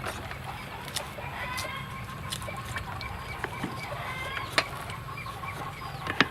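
Chickens clucking, a run of short repeated calls, with a couple of sharp knocks, one about two-thirds of the way through and one near the end.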